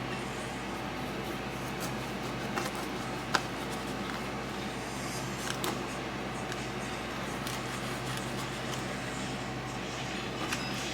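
Steady low mechanical hum, like a fan or appliance, in a small room, with a few light clicks and knocks scattered through it; the sharpest click comes about three seconds in.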